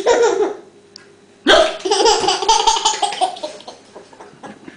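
A young child hiccups once, a short sharp voiced catch. About a second and a half later comes high-pitched laughter lasting about two seconds.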